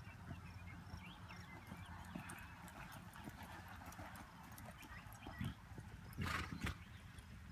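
A horse's hoofbeats on soft arena dirt as it canters under a rider, with a brief loud burst of noise about six seconds in.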